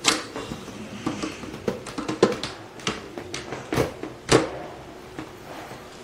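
Plastic handle being pushed and snapped onto an upright vacuum cleaner body: a series of sharp plastic clicks and knocks. The loudest come about two and four seconds in, and it goes quieter near the end once the handle is connected.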